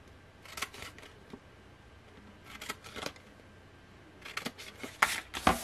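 Large paper scissors snipping through patterned craft paper in three short bursts of cutting, the last and loudest near the end.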